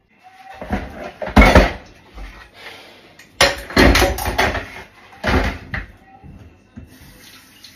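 Kitchen clatter: a metal baking tray and a wooden pastry board being handled at the counter, with a few loud knocks and some scraping between them.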